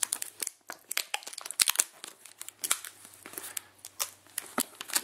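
Tight plastic wrapping on a small cardboard box crinkling and tearing as hands pull at it, in many quick irregular crackles.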